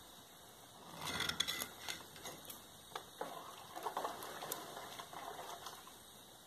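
A spoon stirring in a metal cooking pot of sugar syrup, scraping and clinking against the pot. A scraping swell comes about a second in, then scattered light clicks.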